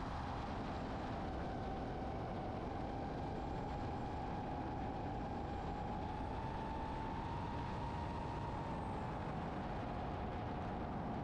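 DJI FPV drone's motors and propellers whining in flight, heard from a camera on the drone, over a steady rush of wind. The whine holds one pitch, rises a little about six seconds in, then settles back down near the end.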